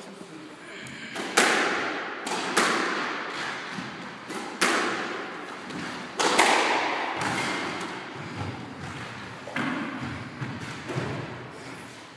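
Squash rally: the ball cracking off rackets and the court walls, four loud hits in the first six or so seconds, then softer knocks, each echoing in the enclosed court.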